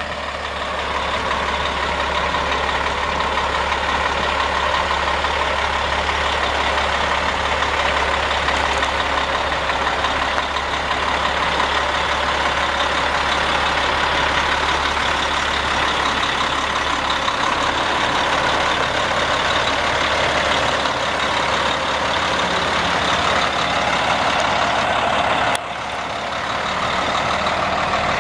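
Caterpillar C12 inline-six diesel engine of a 2000 Freightliner FLD120SD dump truck idling steadily, with a sudden dip in level near the end.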